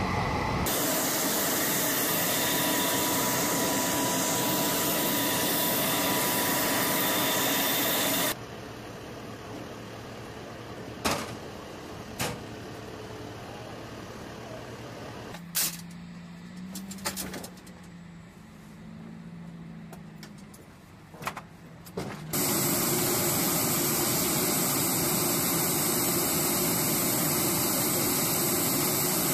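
Loud, steady turbine noise of Navy MH-60 Seahawk helicopters running. About eight seconds in it gives way to a quieter stretch with a few sharp knocks and a low hum. About twenty-two seconds in the loud steady noise returns.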